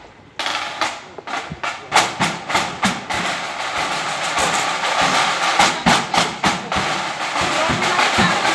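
Marching band drums playing a parade beat, snare strikes over a bass drum, starting about half a second in and settling into a steady, dense beat.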